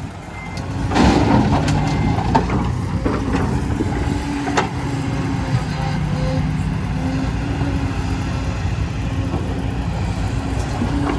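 Dump truck engine running steadily. Its reversing beeper sounds briefly at the start and stops, then a burst of noise comes about a second in, with a few sharp knocks.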